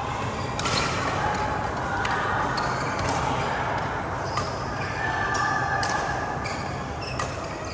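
Badminton rally: rackets striking the shuttlecock in sharp hits about once a second, irregularly spaced, over the general noise of a sports hall.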